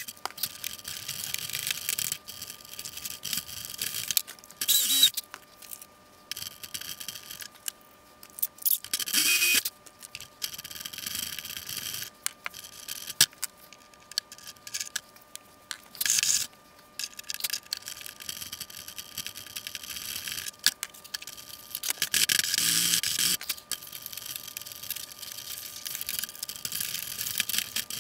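Hand work on a model airplane wing: irregular scraping, clicking and rattling of tools and small parts being handled, with a few louder scrapes, the longest a little past two-thirds of the way through.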